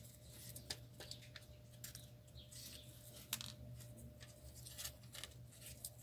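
Faint handling noises of hands working wires into a corrugated cardboard fuselage: scattered light clicks and rustles, the sharpest a little past halfway, over a steady low hum.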